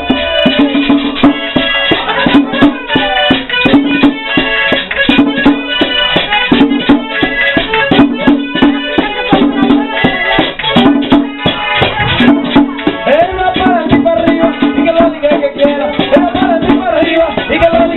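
Live merengue típico from a conjunto: accordion melody over tambora drum and a fast, even scraping of the güira.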